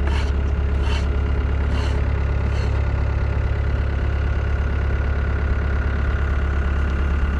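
An engine idling steadily, with four short strokes about a second apart in the first three seconds, each fainter than the last.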